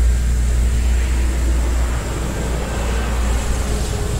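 A steady low mechanical hum, like a machine or fan running, which drops in level about two seconds in.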